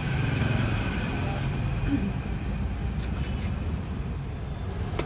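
Steady low rumble of road traffic, with faint indistinct voices in the background.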